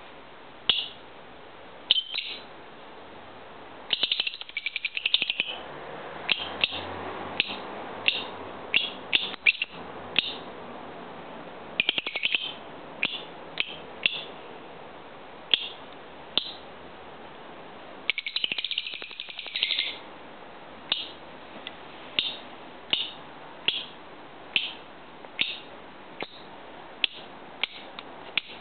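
Lovebird chirping: sharp, high single chirps about a second apart, broken three times by bursts of rapid chattering.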